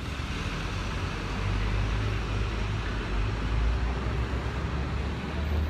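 Steady city street noise: a low rumble of road traffic with a hiss of general outdoor noise over it.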